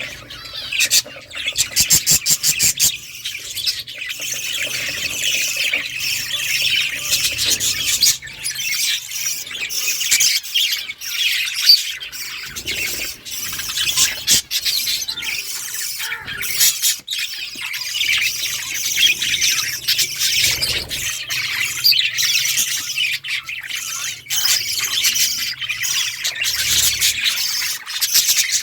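Budgerigars chattering, warbling and chirping continuously, a mix of rapid twitters and squawky notes from several birds. About two seconds in comes a quick rattling run of ticks.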